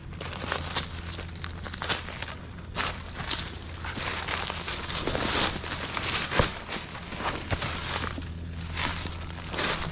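Footsteps crunching and rustling through dry ground cover, with irregular sharp crackles and a denser stretch in the middle.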